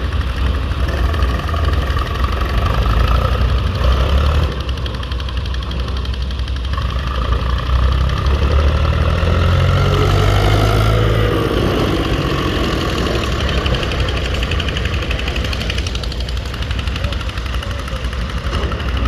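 Diesel engine running steadily, revving up about eight seconds in and easing back down a few seconds later.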